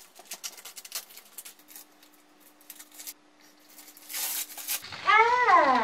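Quick, irregular taps of paint being dabbed onto a wall through a cloud stencil, then a short rustle near the stencil; about five seconds in a person's voice calls out once, sliding down in pitch.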